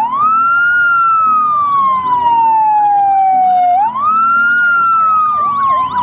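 Fire engine sirens: a loud slow wail that climbs quickly and then falls slowly, twice, with a second siren warbling up and down about twice a second over it.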